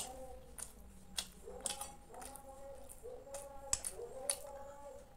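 Close-up eating sounds of a person chewing kheer and malpua: wet chewing and lip smacks, a string of sharp clicks. Near the end a spoon scoops rice pudding in a glass bowl.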